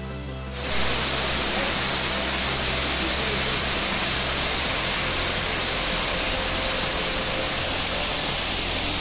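Abbe Falls waterfall, water pouring down the rock face into the pool: a loud, steady rush that cuts in about half a second in, after a short tail of music.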